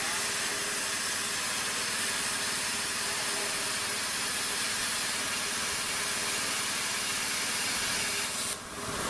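CNC plasma cutter torch cutting steel plate: a steady hiss of the plasma arc and its gas jet, which dips briefly near the end.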